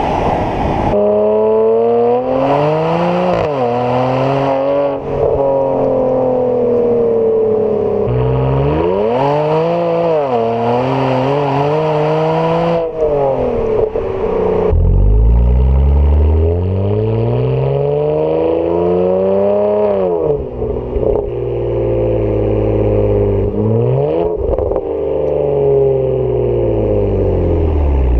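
BMW 335i's turbocharged 3.0-litre straight-six, heard through an AC Schnitzer rear silencer with stock catalytic converters, driven hard. The revs climb and fall several times as it accelerates and backs off, with a few abrupt cuts between runs.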